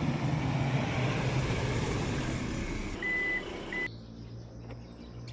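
A vehicle running with a steady rumble and low hum. About three seconds in come two short high beeps, and just before four seconds the sound drops suddenly to a quieter hum.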